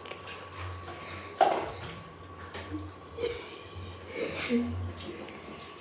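Water splashing and small handling sounds at a bathroom sink in a small tiled room, with one sharp knock about a second and a half in.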